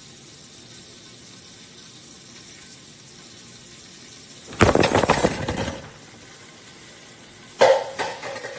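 Frying pan sizzling faintly and steadily on the stove. About halfway through comes a sudden loud burst of sizzling that dies down over about a second, and a shorter one comes near the end.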